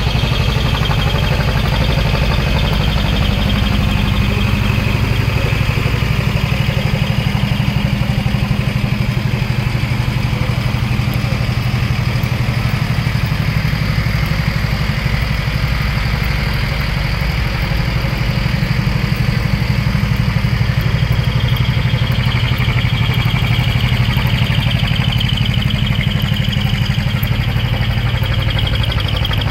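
Diesel engines of decorated trucks idling, a steady low rumble that holds even throughout.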